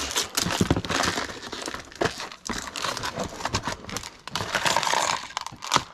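Rummaging through a cardboard box: cardboard and packed items rustling and crinkling, with small objects clicking and knocking against each other.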